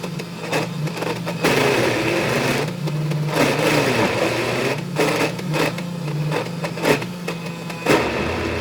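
Breville Bluicer blender motor running at speed 4 on a jar of thick peanut butter, with irregular knocks and rattles as the blade only sometimes catches the mixture. Near the end the hum drops lower.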